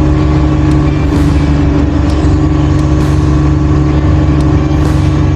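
Mobile crane's diesel engine running steadily at a constant speed, with occasional faint high ticks over it.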